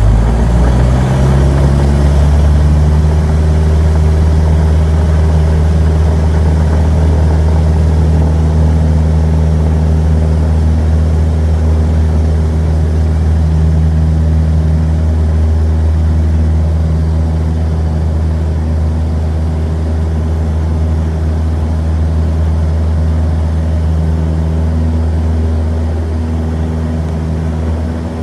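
Engine and propeller of a single-engine light aircraft running at a steady drone, with a slight rise in pitch about a second in.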